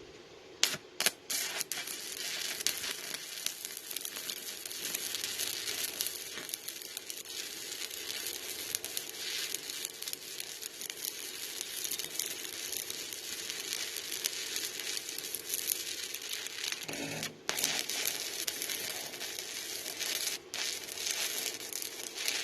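Stick welding with a 1/8-inch 7018 electrode on a small inverter welder: a few sharp ticks as the arc is struck, then a steady crackling, sizzling arc that breaks off briefly twice near the end.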